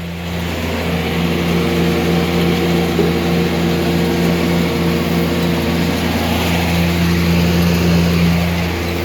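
Tractor diesel engine running steadily under light load, a deep even drone with a constant pitch.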